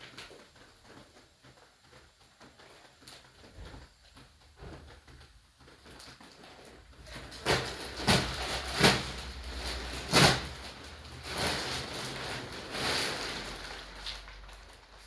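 Rustling and crackling of plastic wrapping around a compressed, roll-packed spring mattress as it is handled, with a few small clicks at first. From about halfway through, four sharp knocks come within three seconds, followed by a few more seconds of rustling.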